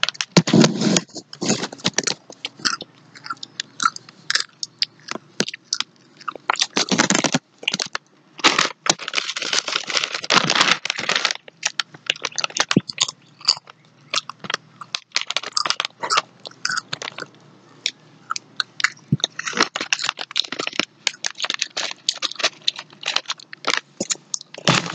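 Pringles potato chips being bitten and chewed close to the microphone: irregular crunching that comes and goes.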